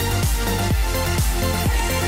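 Electronic dance music with a steady four-on-the-floor kick drum, a little over two beats a second, under sustained synth chords.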